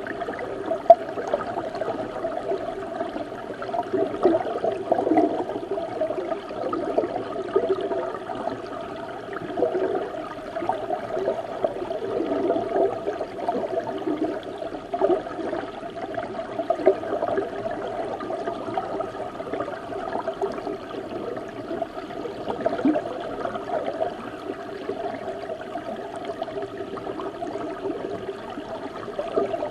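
River water flowing, heard underwater: a continuous low, dull rushing and gurgling that wavers in strength, with one sharp click about a second in.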